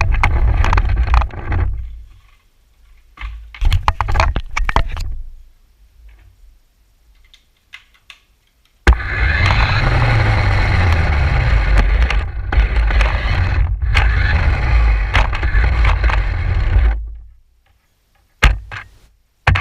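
Radio-controlled car driving in short bursts and then one long run of about eight seconds, its wheels and chassis rattling and rumbling over the ground, picked up close by a GoPro mounted on the car itself.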